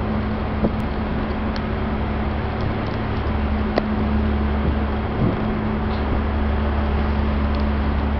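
A steady low engine hum with a constant drone, over even outdoor background noise, with a few faint clicks.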